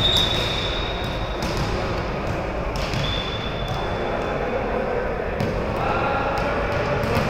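Referee's whistle blown twice, each a single steady blast of about a second, the first at the start and the second about three seconds in. Under it run the chatter of a busy indoor sports hall and the short thuds of a volleyball bouncing on the court floor.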